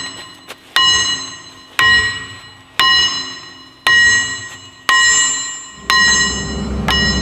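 Hammer blows on the steel final drive of a Takeuchi TB175 excavator, about one a second, seven in all, each ringing and dying away before the next. Near the end a low engine rumble comes in underneath.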